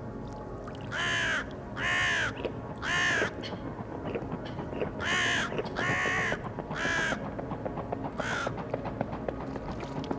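A bird calling seven times, each call about half a second long: three calls about a second apart, a short pause, three more, then a single call near the end.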